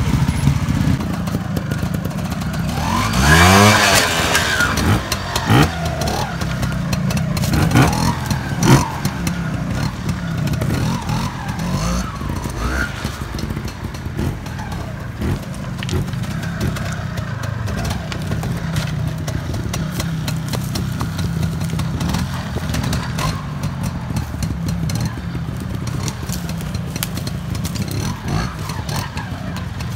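Trials motorcycle engine: one sharp throttle blip a few seconds in that rises and falls in pitch, a few shorter blips soon after, then running low and steady.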